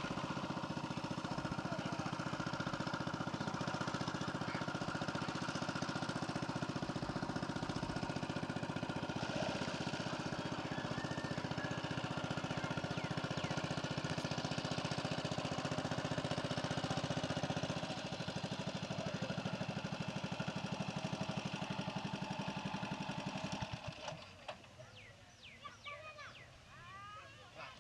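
A small engine running steadily with a fast, even putter, cutting out about 24 seconds in. A few faint high chirps follow.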